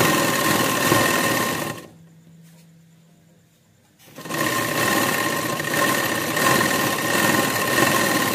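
Sewing machine stitching a seam through cotton fabric at a steady speed. It stops about two seconds in, leaving only a faint low hum, then starts stitching again about four seconds in.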